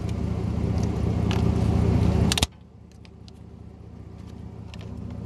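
A truck engine idling steadily nearby, with a few light clicks as jumper-cable clamps are handled. About halfway through, the sound drops suddenly to a much quieter idle hum.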